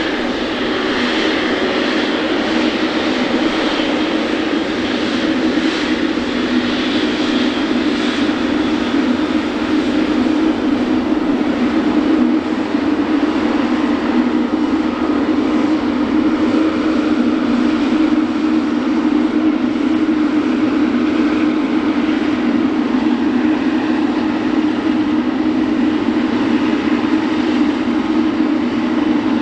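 Boeing 777 freighter's twin GE90 turbofan engines running at low taxi power: a steady jet rush with a constant low hum, holding level with no spool-up.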